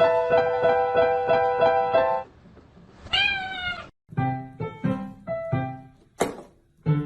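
Piano music with quick repeated notes breaks off; about three seconds in, a cat meows once, a drawn-out call just under a second long, and then a different piano tune starts.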